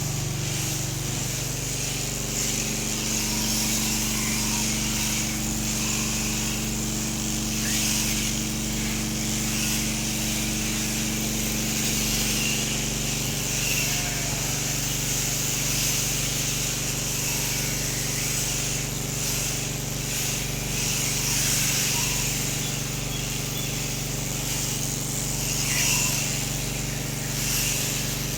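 Electric sheep-shearing clippers running steadily, a constant motor hum with a hiss above it.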